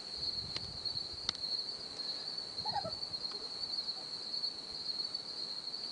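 Steady high trilling of crickets, an insect chorus, with a few faint taps and one short faint call about three seconds in.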